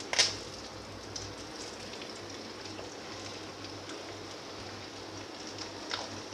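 Samosas deep-frying in hot oil: a steady sizzle of bubbling oil, with a sharper, louder crackle just after the start and another near the end.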